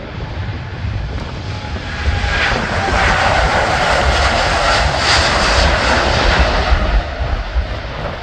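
Jet engines of a twin-engine Boeing 787 at takeoff thrust on its takeoff roll, a dense, even noise that grows louder about two seconds in as the airliner passes close by. The noise eases slightly near the end as it rotates and moves away.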